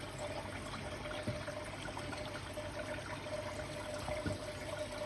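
Water pouring steadily from the filter return pipe into the koi pond, a continuous trickle and splash.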